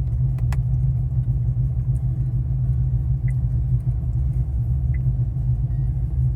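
Cammed V8 of a Holden VF Commodore SSV Redline idling with a steady low rumble, heard from inside the cabin.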